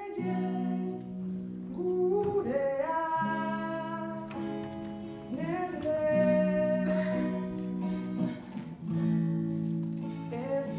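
Live electric guitar playing a slow melody of long held notes, several sliding up into pitch, over a sustained low chord.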